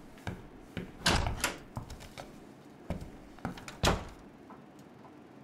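A door being opened and closed: a string of short clicks and knocks, the loudest just after a second in and again near four seconds.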